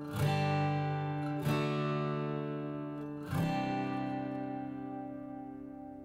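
Background music: acoustic guitar strumming chords three times, the last chord left to ring out and fade slowly.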